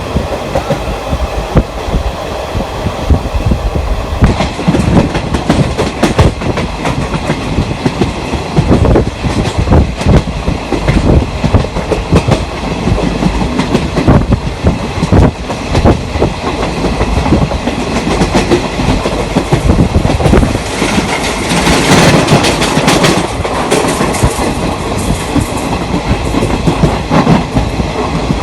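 Train running along the track: a steady rumble with the wheels clattering over the rail joints, and a louder hissing stretch for a few seconds about three quarters of the way in.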